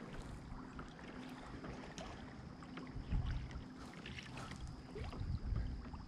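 River water lapping and trickling against the hull of a drifting plastic fishing kayak, with small scattered splashes and a couple of soft swells in the middle.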